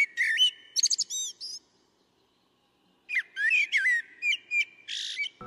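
A songbird singing: a quick burst of varied whistled and chirping notes, a pause of about a second and a half, then a second, longer burst.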